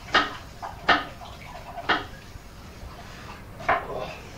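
Glasses and dishes being handled: four sharp clinks and knocks at irregular intervals, each with a brief ring, plus a few fainter taps between.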